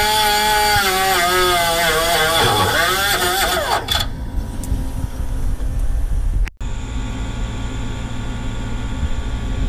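Handheld electric power tool motor whining, its pitch sagging and recovering several times, stopping about four seconds in. A low steady hum is left after it.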